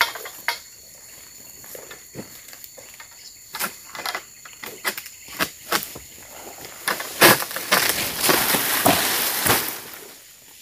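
Pole-mounted harvesting sickle knocking and scraping against an oil palm's frond stalks in scattered sharp clicks. About seven seconds in comes a loud rustling crash of palm leaves lasting a couple of seconds, as a cut frond comes down through the crown.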